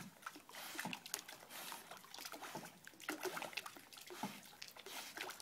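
Faint water lapping and small irregular splashes from a dog swimming at the surface of a swimming pool.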